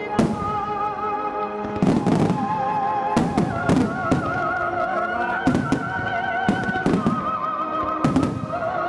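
Aerial fireworks shells bursting, about ten booms at roughly one a second. Behind them plays music with a singer holding long notes with vibrato.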